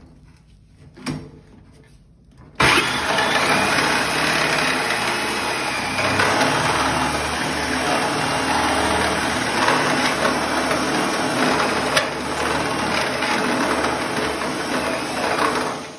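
Power drill with a step drill bit boring through a 1.0 mm steel sink. After a brief click, it starts about two and a half seconds in with a loud, steady metal-cutting grind, and stops near the end.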